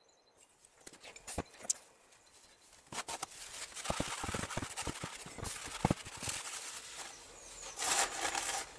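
Small metal engine parts being handled and worked by hand. A few sharp clicks at first, then from about three seconds in a rough rubbing with many light clicks and knocks.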